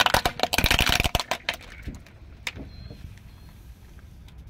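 Hollow plastic toys cracking and snapping as a car tyre rolls over and crushes them: a dense burst of cracks for about the first second, then a few scattered snaps, the clearest about two and a half seconds in.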